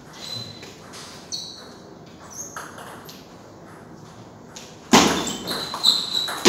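Faint taps and pings of a table tennis ball in play, then a sudden loud noise about five seconds in that dies away over the next second or so.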